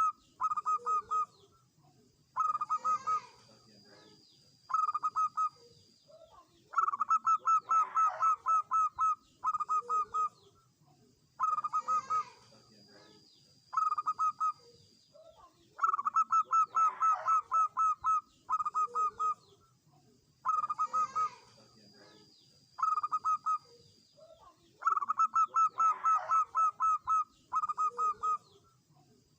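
Zebra dove (perkutut) singing: phrases of rapid staccato cooing notes, each a long run followed by a few shorter bursts, repeating in the same pattern about every nine seconds.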